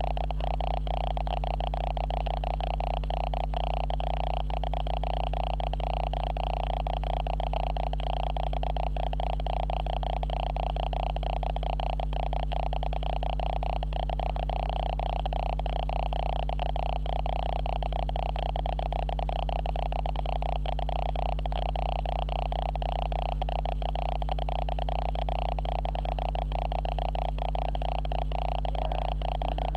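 Steady electronic hum and buzz from the camera's own noise, a constant drone that does not change.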